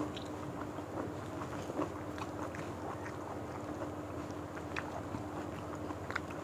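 People eating with their hands: small irregular clicks and smacks of chewing and of fingers picking at rice and fried fish, over a steady low hum.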